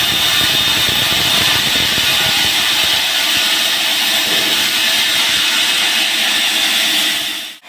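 Band sawmill running, probably cutting through a teak log: a loud, steady hissing machine noise with a rough, uneven low end, dropping out abruptly at the very end.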